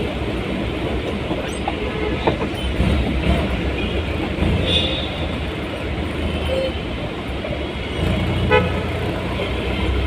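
Steady road and engine noise of a vehicle moving through city traffic, with a couple of short horn toots about five seconds in and again near the end.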